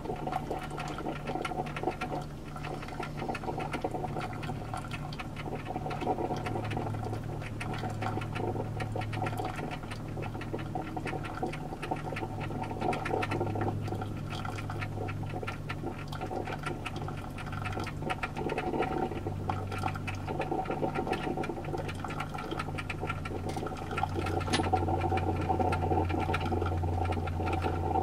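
Black & Decker single-serve drip coffee maker running its brew cycle: a steady crackling gurgle of water being heated and pushed through the unit. Under it a low hum swells and fades several times.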